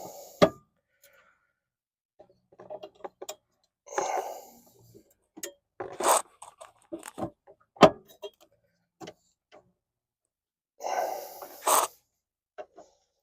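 Sharp metal clicks and knocks of a spanner levering at a VW Golf Mk4 gear selector rod's ball-joint end, about five of them spread out. Two breathy grunts of effort come between them, near four seconds and near eleven seconds.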